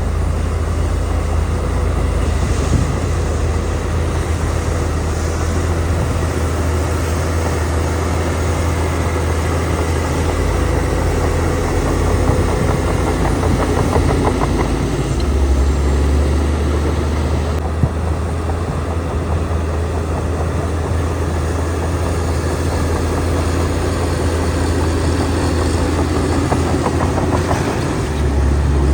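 Diesel engines of a bulldozer and dump trucks running steadily at an earthmoving site, a continuous deep rumble that shifts in pitch and level a few times.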